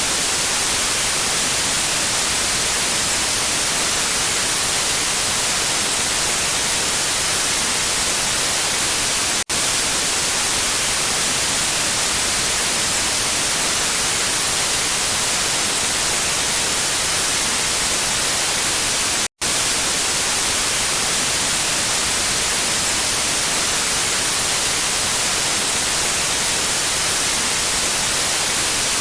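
Steady hiss of TV/radio static white noise, strongest in the treble. It drops out for an instant twice, about ten seconds apart.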